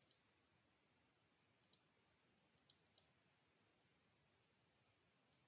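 Faint computer mouse clicks in near silence: one at the start, a double click about a second and a half in, a quick run of four near three seconds, and one more near the end.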